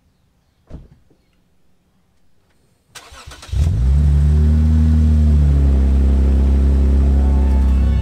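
Car engine started: a short crank about three seconds in, catching with a brief rise in revs that falls back to a steady idle. A single click about a second in.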